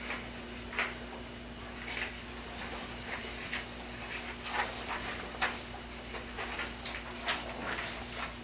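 Sheets of paper being handled and turned, a scatter of short, irregular rustles, over a steady low electrical hum.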